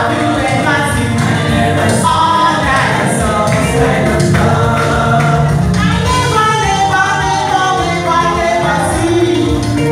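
A woman singing a gospel song into a handheld microphone over a PA, with other voices singing along.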